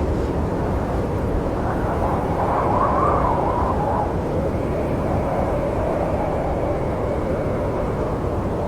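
Snowstorm wind blowing steadily, a low rushing noise with a wavering howl that swells briefly about three seconds in.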